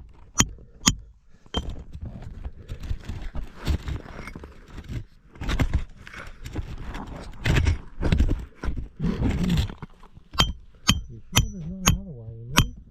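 Sharp, ringing knocks, about two a second, briefly at the start and again from near the end. Between them, a long stretch of scraping and rustling as a caver works through a rocky passage. A drawn-out groaning voice sounds shortly before the end.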